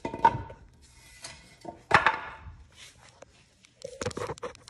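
A few scattered knocks and clanks of hard objects, with a sharp one about two seconds in and a quick run of them near the end.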